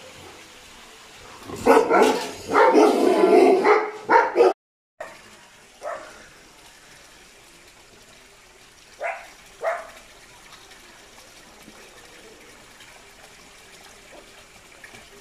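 Dog barking: a loud run of barks from about one and a half to four and a half seconds in, then single barks spaced out, two close together about nine seconds in.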